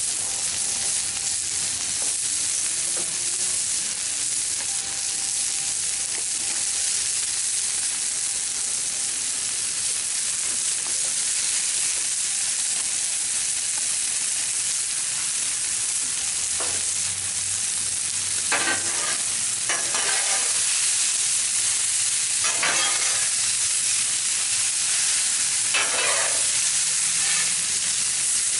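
Vegetables sizzling on a Blackstone flat-top griddle, a steady frying hiss. Several short scrapes of a spatula across the steel cooktop come in the second half as the food is stirred and tossed.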